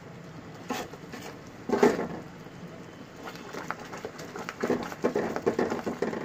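Silicone spatula stirring and scraping thick caramel in a metal pot, with irregular scrapes and knocks, the loudest about two seconds in. The caramel is bubbling and has thickened to doneness.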